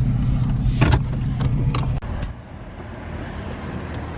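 Subaru WRX's turbocharged flat-four engine idling with a steady low rumble, with a brief whoosh about a second in. About two seconds in the engine sound cuts off abruptly and a quieter background remains.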